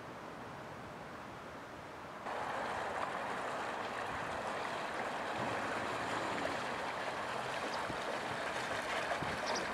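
Steady hiss of harbour water and wind that jumps suddenly louder about two seconds in. From about halfway a small inflatable boat's outboard motor runs faintly underneath.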